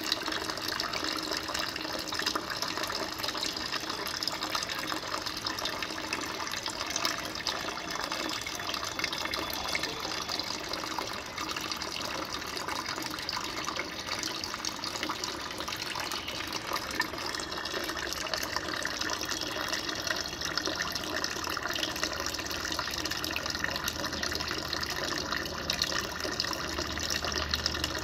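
Water running steadily, a continuous splashing flow.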